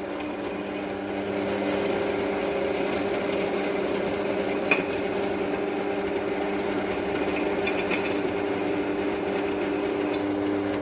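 Electric drill with a 5 mm bit running steadily as it bores into the steel of a railway-track rail, with a single sharp tick about midway.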